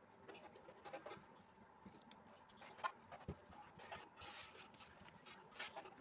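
Faint scratching and irregular clicks as a kitchen knife cuts into a paperboard juice carton and taps against a plastic plate.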